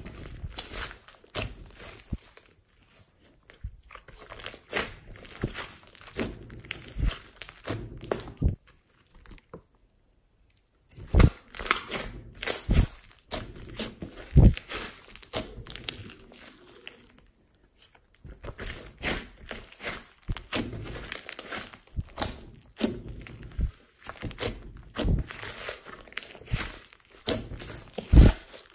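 A large mass of glossy slime mixed with floam beads being pressed, pinched and kneaded by hand, giving irregular sticky pops and clicks as air pockets burst and the beads crunch. The sound stops for about a second around ten seconds in.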